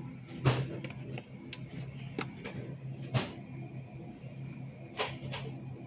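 Steady low hum of a store's freezer cases, with five short knocks and clacks over it, the loudest about half a second and three seconds in.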